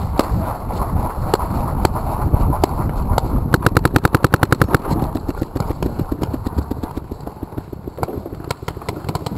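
Paintball markers firing: scattered single shots, then a fast string of about a dozen shots about three and a half seconds in, over a steady low rumble.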